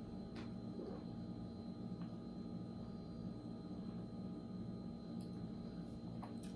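Quiet room with a steady low hum and a few faint clicks, about half a second in and again near the end.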